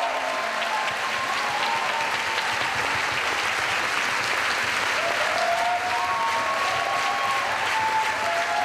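Audience applauding steadily, with faint music of held melodic notes underneath that becomes clearer about halfway through.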